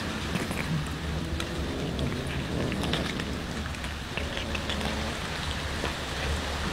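Many cats chewing and smacking on raw fish together, a dense patter of small wet clicks, with a steady low hum underneath.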